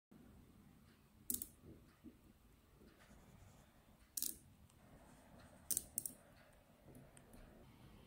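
Small neodymium magnetic balls snapping together with sharp metallic clicks as ball-built train cars are coupled: one click about a second in, another around four seconds, and a quick run of three near six seconds.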